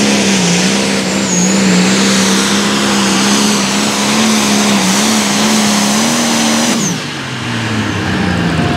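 International 5488 Limited Pro Stock pulling tractor's turbocharged diesel engine at full throttle under load as it drags the sled, a steady, loud note that wavers slightly. Near the end of the run the engine note drops sharply and falls away as the throttle comes off.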